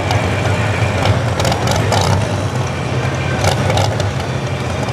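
A pro stock 4x4 pulling truck's engine idling steadily at the line, with a few short sharp clicks over it.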